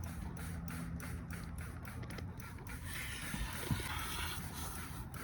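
Rag wiping and scrubbing inside a sheet-metal HVAC cabinet, with scratchy, irregular rubbing that thickens about three seconds in. A steady low hum runs underneath.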